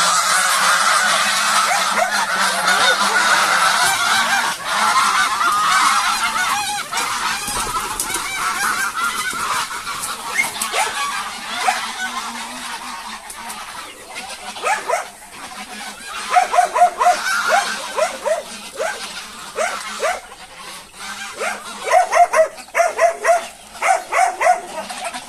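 A flock of farm fowl calling: a dense, continuous chatter at first, giving way from about halfway through to runs of short, loud calls repeated in quick succession.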